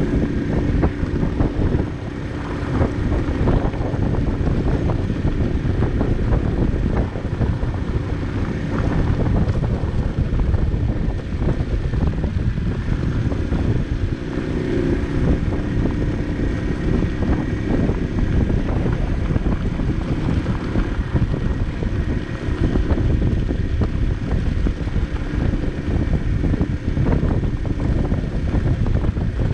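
Barton Volcano 50cc moped riding on a loose gravel road. Its small engine hums steadily under wind noise on the microphone, with the tyres crackling over the gravel.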